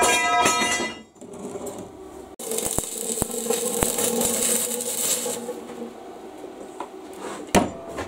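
Electric arc welding of a steel plate to a pipe: the arc runs for about three seconds, starting a couple of seconds in, a steady hiss and buzz with a few sharp crackles of spatter, then stops. A single metal knock comes near the end.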